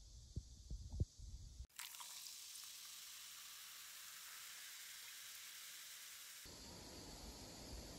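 A few soft chewing sounds as a fresh fig is eaten. About two seconds in, a quiet, steady, high-pitched sizzle of shrimp fried rice in a hot frying pan takes over.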